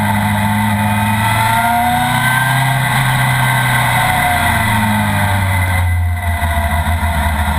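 Sport motorcycle engine running under way, its pitch rising and falling several times as the throttle is opened and closed.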